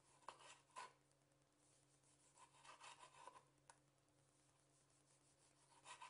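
Faint knife cuts through cherry tomatoes onto a wooden cutting board: a few short scraping strokes in small groups with pauses between, and one sharp tap of the blade on the board.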